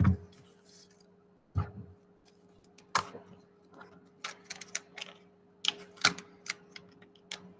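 Plastic drinking straws clicking and rattling against a wooden tabletop and against each other as ten are gathered up and bound into a bundle with a rubber band: a string of irregular sharp clicks, with a faint steady hum underneath.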